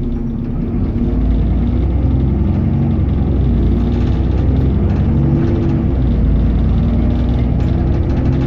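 Alexander Dennis Enviro400 double-decker bus running under way, its engine a low rumble that grows about a second in, with several steady tones that shift in pitch as it pulls.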